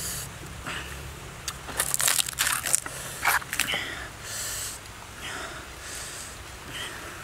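Crisp roasted pig skin and meat crunching and crackling, with a cluster of sharp crunches about two to four seconds in and softer ones after.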